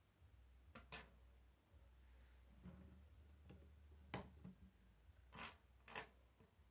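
Plastic K'nex rods, connectors and gears clicking and knocking as they are snapped together and the model is handled on a wooden table: a handful of sharp clicks, the loudest about four seconds in, over a faint low hum.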